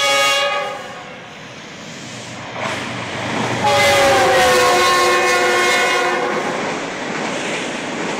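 Green Line Express passenger train passing at speed: the locomotive horn ends a blast about half a second in, then sounds again in one long blast from about three and a half seconds in, sagging slightly in pitch as it goes by. Under and after it runs the steady rush and rumble of the coaches rolling past on the rails.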